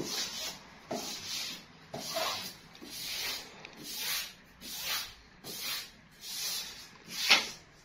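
Wallpaper being rubbed and smoothed against the wall by hand: a steady run of short swishing strokes, about one a second, with one louder stroke near the end.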